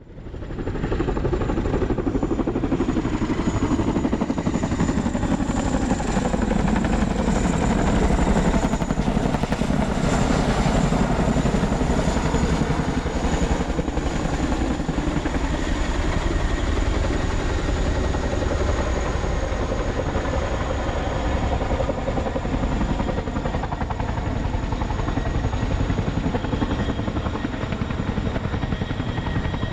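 Chinook CH-47 tandem-rotor, twin-turbine helicopter flying overhead: a loud, steady rotor and engine rumble with a thin high turbine whine on top, swelling in within the first second and staying loud, the whine sinking slightly in pitch after about ten seconds.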